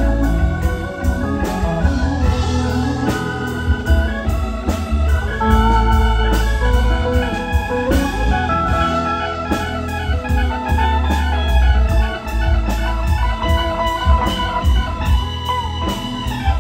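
Live band playing an instrumental passage: an organ sound on the keyboard over bass guitar, electric guitar and a steady drum beat.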